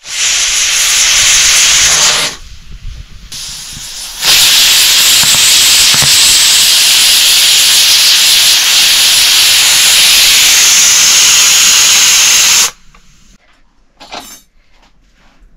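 Loud, steady hiss of cooking steam. It drops out briefly about two seconds in, comes back, and cuts off abruptly near the end.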